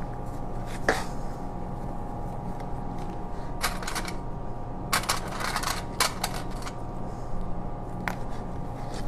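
Stiff fabric being handled and worked around a corner, with scattered clicks and rustles as sewing clips are put on, over a steady electrical hum.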